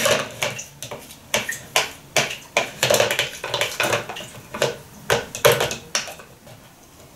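A spoon scraping and tapping against hand-mixer beaters and the side of a jug, clearing off cake batter, in a run of irregular clicks and scrapes that stops shortly before the end. The mixer is not running.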